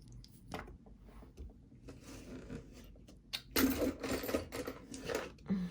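Costume jewelry clicking and rattling as pieces are rummaged through and picked out by hand, with a busier stretch of shuffling and scraping about three and a half seconds in.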